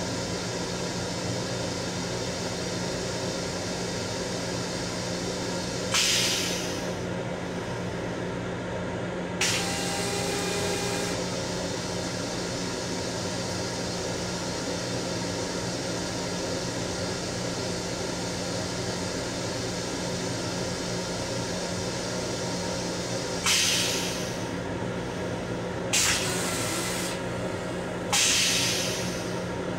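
M7 railcar toilet spraying in five short, sudden hissing spurts that fade within a second or two, one of them longer, about a second and a half. Under them runs a steady railcar hum with a constant low drone.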